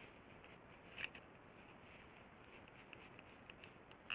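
Near silence broken by one faint sharp click about a second in and a few light ticks near the end: tweezers working rubber plugs out of a plastic headlight housing.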